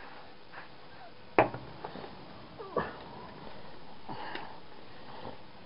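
A few scattered knocks and clanks of tools and metal being handled while lead-sheathed cable is stripped for scrap, with one sharp knock about a second and a half in and a lighter one near the three-second mark.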